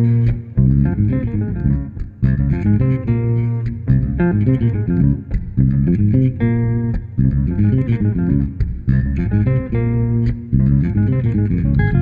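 Instrumental duo of a hollow-body archtop electric guitar and a multi-string electric bass playing together: a run of short plucked guitar notes and chords over a strong, low bass line.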